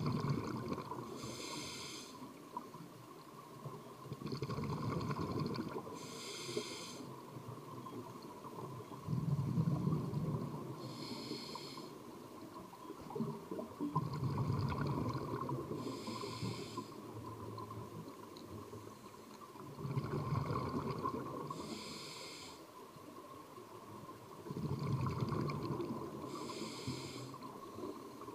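Scuba regulator breathing heard underwater: a hissing inhale through the demand valve alternating with a bubbling exhale, repeating about every five seconds.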